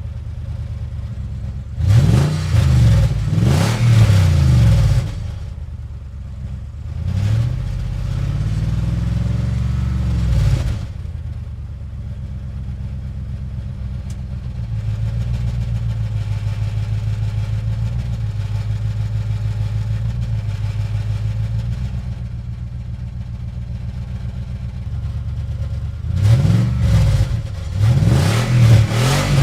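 Car engine accelerating through the gears: its pitch climbs and drops back with each shift, then it runs at a steady drone at cruising speed. Near the end it climbs through the gears again.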